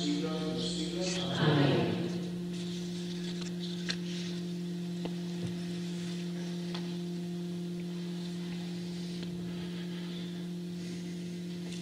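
A steady low hum, two tones an octave apart, with a few faint clicks. A man's voice trails off in the first second, followed by a brief rustling swell.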